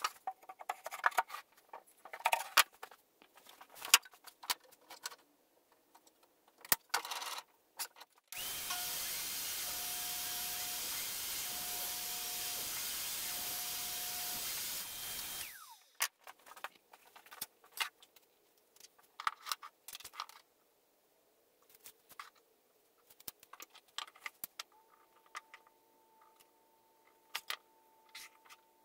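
Scattered knocks and clicks of wood parts being handled, then a table saw runs for about seven seconds while a wooden panel is fed through the blade, its motor whine falling away as it winds down. Light taps and clicks follow.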